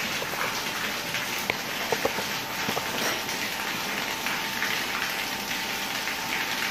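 Steady rain-like hiss of a running boiler-room heating plant, with a faint steady tone and a few light clicks.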